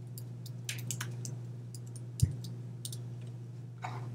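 Sparse computer keyboard keystrokes and clicks over a steady low hum, with one louder knock about two seconds in.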